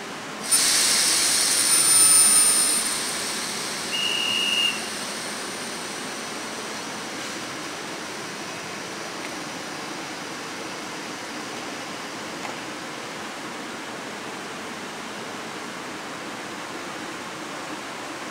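Train standing at a platform, its EP07 electric locomotive beside it: a sudden burst of compressed-air hiss about half a second in, with a high whine in it, fading over a few seconds. A single short shrill whistle blast comes about four seconds in, then a steady hiss of the standing train.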